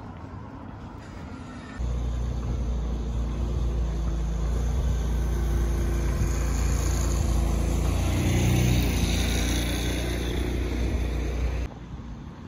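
Steady low engine rumble with a deep hum, starting and stopping abruptly, swelling a little about two-thirds of the way through.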